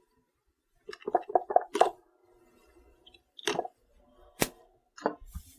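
Plastic zip ties having their tails snipped off: a handful of sharp clicks and snaps spread across the few seconds, with light handling rattles between them.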